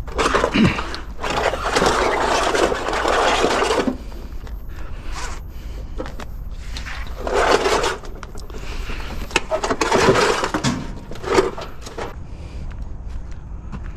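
Scrap being handled and dragged, with rough scraping in several bursts: a long one of about four seconds at the start, then shorter ones later, mixed with scattered knocks and clicks.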